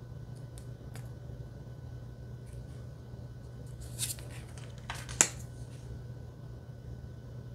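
Cardstock astrology deck cards being handled as one card is slid off the front of the stack and moved to the back: a short swish about four seconds in, then another swish ending in a sharp tap of card on card a second later. A faint low hum runs underneath.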